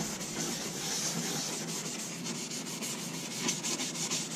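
Steel wool lightly scrubbing the wet aluminum hull of a jon boat, a steady run of quick back-and-forth strokes, working off hard-water lines and mud sprayed with diluted white vinegar.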